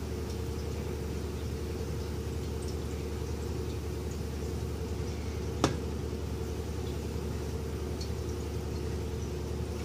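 A steady low electrical hum runs under faint wet sounds of a ladle stirring thick rice mash in a cheesecloth-lined strainer. There is one sharp click a little past halfway.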